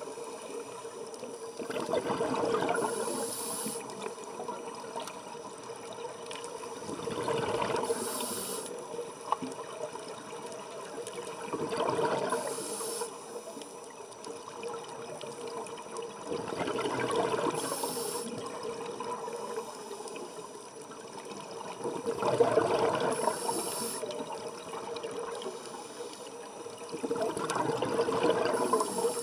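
A scuba diver's breathing through a regulator heard underwater: a bubbling rush of exhaled air and a short high hiss, repeating about every five seconds, six breaths in all.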